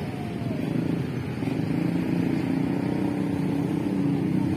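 A road vehicle's engine running steadily, getting louder over the few seconds as it comes closer.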